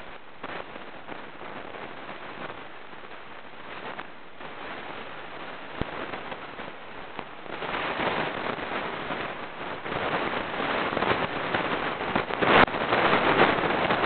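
Crackling, rustling handling noise from hands working close to the microphone, growing louder about halfway through, with a sharp click near the end.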